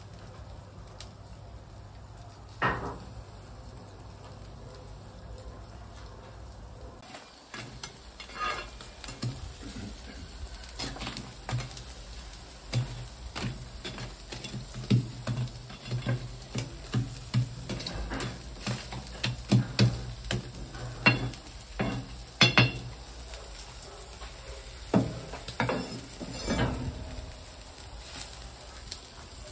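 Beef cuts sizzling on a parrilla grill over wood embers, with frequent sharp crackles and pops. Quieter for the first several seconds apart from one crack, then dense crackling through most of the rest.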